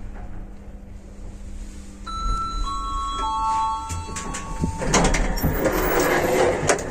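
Lift Service elevator car (built 2001-2002, no inverter drive) running with a low hum, then a three-note arrival chime stepping down in pitch about two seconds in. From about five seconds a louder rush of noise with clicks as the sliding car doors open.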